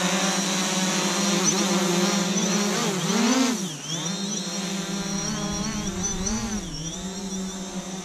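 Quadcopter propellers buzzing close by. The pitch swells and drops twice as the motors change speed, and the sound gets a little quieter after about three and a half seconds.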